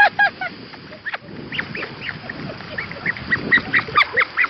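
A person splashing into the pool at the foot of a natural rock waterslide, then a rapid run of short, high-pitched, quack-like squeals, about three or four a second, that grow louder toward the end.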